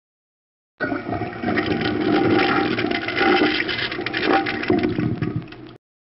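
Toilet flushing: a rush of water that starts abruptly about a second in, swirls on for about five seconds, and cuts off suddenly near the end.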